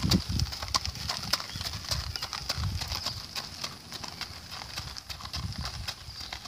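Haflinger mare's hooves clip-clopping at a walk on gravel, about three hoof-falls a second, with the cart's wheels rolling over the gravel underneath. The sound fades a little as horse and cart move off.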